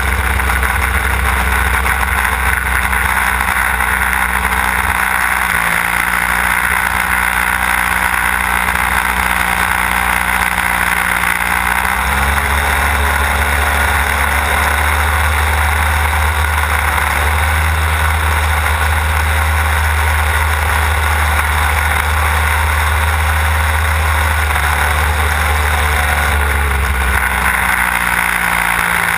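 Desert Aircraft DA-150 twin-cylinder two-stroke engine and propeller of a large-scale model aerobatic plane running steadily in flight, with air rushing past. The engine note rises a little about twelve seconds in and drops back near the end as the throttle changes.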